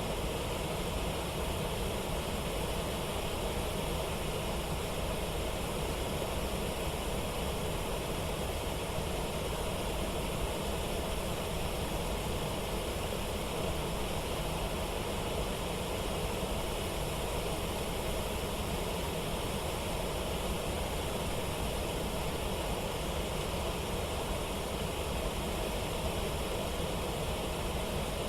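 Steady rush of water falling over river rapids, an even noise without breaks.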